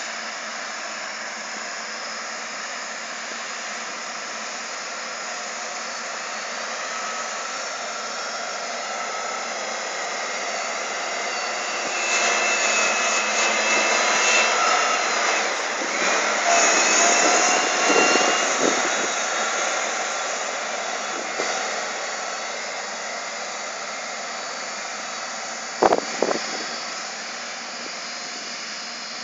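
Cat 924H wheel loader's diesel engine running under load as it pushes soil, with a whine over it, growing louder as the loader passes close about halfway through. Two sharp knocks near the end.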